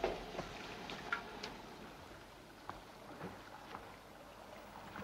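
A sharp knock at the start, then scattered soft clicks and taps over a faint hiss: the sound of someone moving about a room and handling things.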